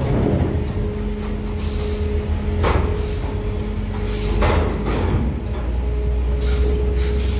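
Heavy Mitsubishi Fuso cargo truck's diesel engine rumbling as it drives off a ferry onto the steel ramp, with two loud clanks of the steel plates under its wheels, about two and a half and four and a half seconds in, over a steady low hum.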